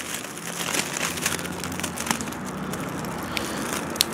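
Footsteps crunching on gravel, small scattered clicks, over a steady low hum.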